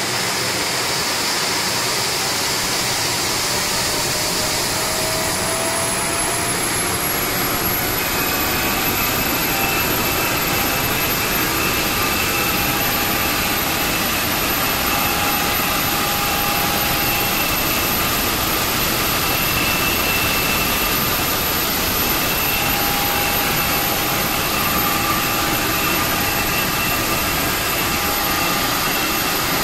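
Honeywell 131-9A auxiliary power unit, a small gas turbine, running earth-shatteringly loud in its test cell: a dense jet roar with a high whine that rises over the first several seconds and then holds steady at a constant pitch.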